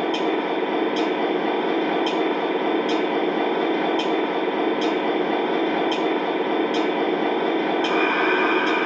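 O scale model train rolling along its track: a steady rumble of the wheels on the rails, with a sharp click from the rail joints about once a second. Near the end a high, steady tone comes in over it.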